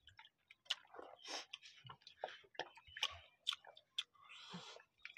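Faint close-up eating sounds: chewing and wet mouth clicks and smacks over a meal of rice biryani eaten by hand, coming as an irregular scatter of short clicks and soft bursts.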